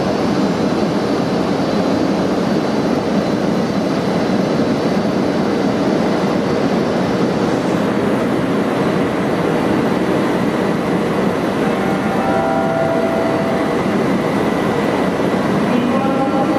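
Standing DB Class 103 electric locomotive, its cooling blowers running with a loud, steady rush and a faint hum over it.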